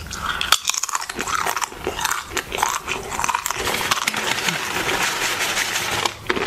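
Close-up crunching and chewing of a mouthful of tortilla chips, a dense run of sharp crunches.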